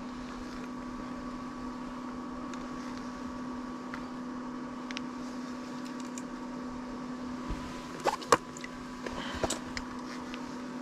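A steady hum with a faint higher whine. A few sharp clicks and knocks come about eight to nine and a half seconds in, as an ice-fishing reel and its line are handled while playing a hooked fish.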